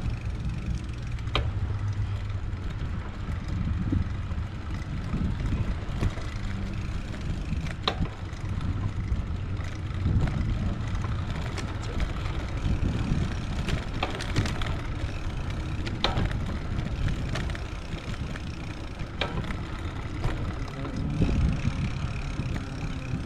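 Bicycle riding on paved paths: steady low rumble of wind on the handlebar-mounted microphone and tyre noise, with a few sharp clicks and rattles from the bike over bumps.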